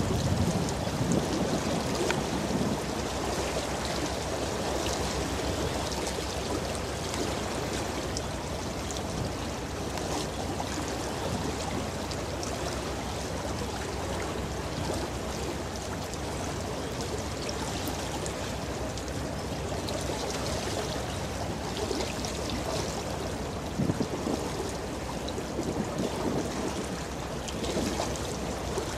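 Steady rush and splash of water as a cargo ship's bow wave runs along the hull, with a low steady rumble underneath and a few brief louder splashes.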